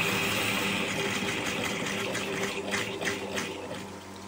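Tap water spurting and splashing in uneven surges into a washbasin onto a cloth filter bag, as the household supply pipe is pulse-flushed to drive out sediment. A faint steady hum runs underneath, and the flow eases off near the end.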